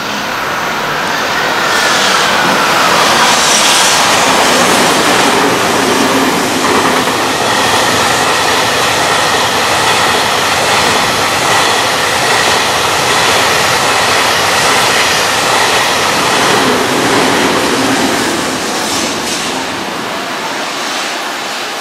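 Long container freight train passing through at speed: a steady, loud rumble and rattle of wagons running over the rails. It builds over the first few seconds, with a falling whine early on, and eases slightly near the end.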